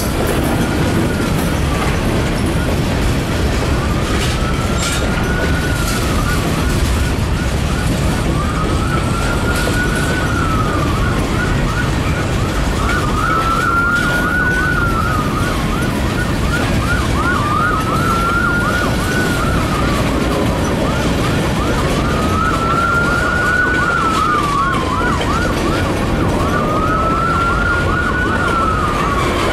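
Emergency vehicle siren sounding a slow rising-and-falling wail about every four and a half seconds, with a fast warbling tone between the wails. Under it is the steady rumble of a freight train rolling past.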